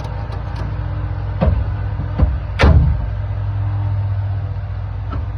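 A vehicle engine idling steadily, with a few knocks about one and a half to three seconds in.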